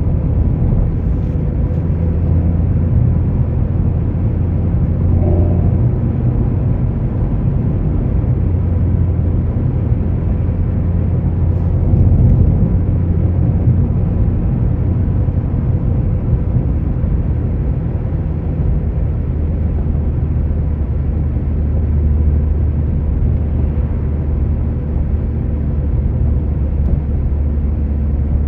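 Car engine and road noise heard from inside the cabin while driving: a steady low drone, swelling slightly about twelve seconds in.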